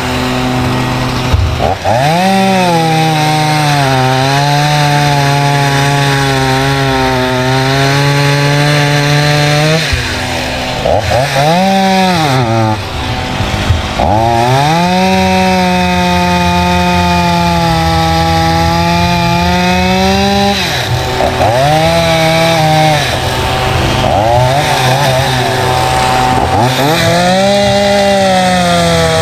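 Stihl MS180 two-stroke chainsaw revved to full throttle in two long runs of several seconds each, its pitch sagging slightly as it cuts into soft wood, then dropping back to idle with short blips of throttle between. The saw is brand new and a little boggy while its rings seat.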